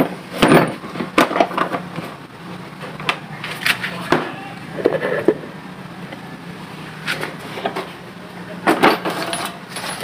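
Irregular clicks and clatter of hand tools being picked through and handled in a plastic tool case.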